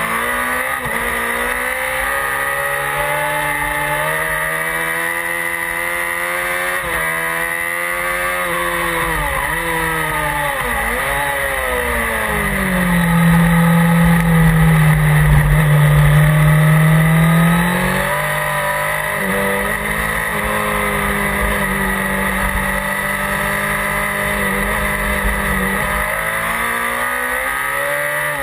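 Honda CBR 600 F Sport's inline-four engine at track pace, its pitch rising again and again through the gears and falling on downshifts. For several seconds around the middle it is held louder at a steady high pitch, then it rises and falls again near the end.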